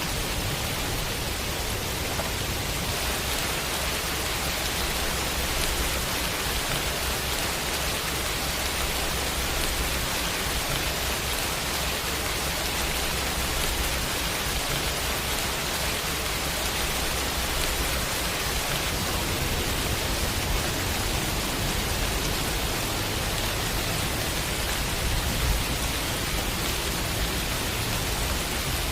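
Heavy rain falling steadily, a dense even hiss, with a low rumble underneath that comes and goes.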